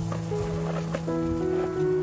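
Background music with held notes that change pitch every half second or so.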